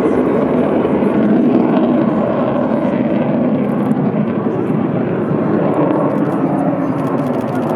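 F-16 fighter jet engine running, a loud steady rushing noise that holds without letup.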